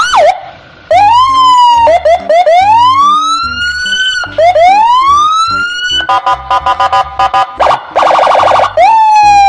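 Police car siren cycling through its tones: short rising whoops and long rising sweeps, then a stepped pulsing tone, a fast warble, and finally a long slowly falling tone.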